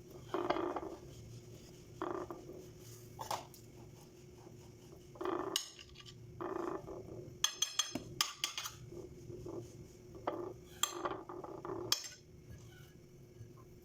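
Kitchen utensils and dishes clinking and knocking now and then as sticky rice dough is handled, with a quick run of sharper metallic clinks about halfway through, over a faint steady hum.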